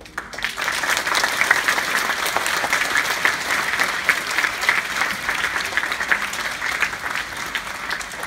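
Audience applauding, breaking out just as the dance music stops and building within about a second, then easing off a little toward the end.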